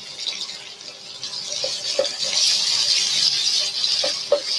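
Shrimp and garlic sizzling in hot oil in a pan, the sizzle swelling about a second and a half in. A few light knocks of a spatula stirring against the pan.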